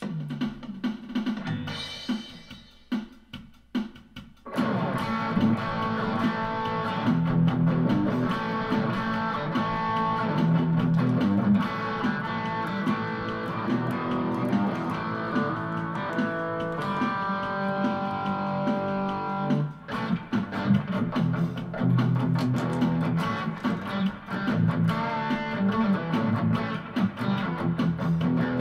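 Electric guitar playing a song: a few sparse notes, then from about four seconds in a fuller, continuous part, with a short break about twenty seconds in.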